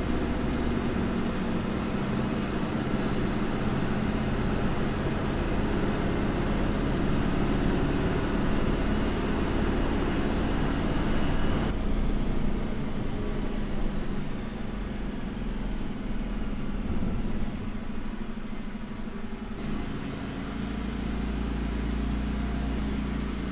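Diesel engine of an Eicher-chassis sleeper bus running steadily under road and tyre noise, heard from inside the bus. The hiss turns abruptly duller about halfway through, and the low hum carries on.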